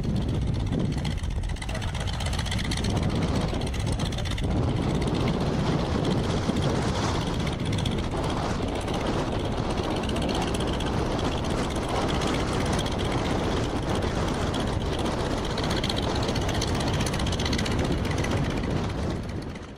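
North American T-28 Trojan's radial piston engine and propeller running steadily at taxi power as the aircraft taxis past.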